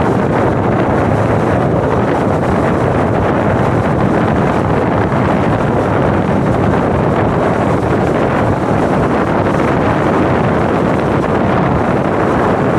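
Steady, loud rush of wind buffeting the microphone of a moving motorcycle, with no distinct engine note or horn standing out.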